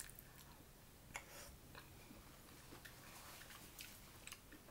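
Faint chewing of a mouthful of taco soup, with a scattering of soft wet mouth clicks.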